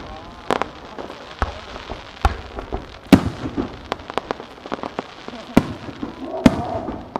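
Aerial fireworks shells bursting: a string of sharp bangs and crackling pops, several a second, with the loudest reports about three, five and a half and six and a half seconds in.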